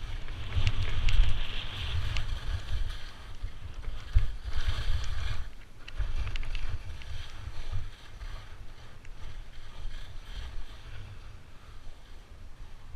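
Wind buffeting the microphone during a downhill run on snow, with a scraping hiss of edges on snow that surges a couple of times early on and then eases.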